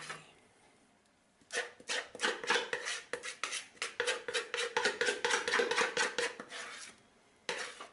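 A utensil scraping brownie batter out of a mixing bowl into a cake form in a quick run of scraping and knocking strokes. It starts about a second and a half in, stops shortly before the end, and a few more strokes follow near the end.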